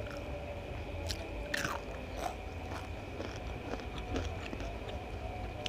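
A person chewing and biting food close to the microphone, with scattered small crunches and clicks.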